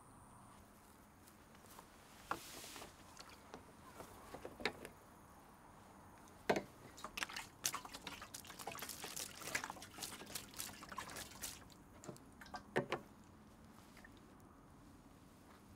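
Liquid poured from a red plastic jerry can into a rusty metal drum, splashing and trickling for several seconds in the middle, after a few plastic clicks and knocks as the can and its cap are handled.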